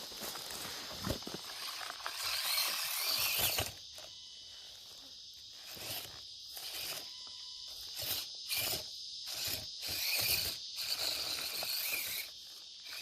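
Steady high chirping of insects, with short scraping and crunching bursts coming and going, the loudest stretch about two to three and a half seconds in.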